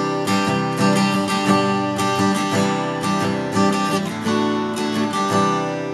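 Acoustic guitar strumming chords in a steady rhythm, the instrumental intro of a song, with the strumming easing off near the end.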